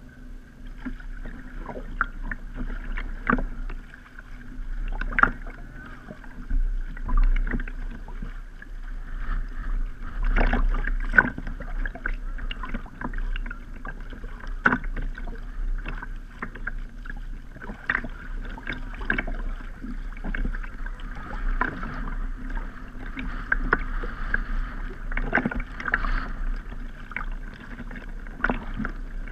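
A kayak moving on the water, heard from a camera on its deck: irregular splashes and slaps of paddle and water against the hull every second or two, over a steady low rumble.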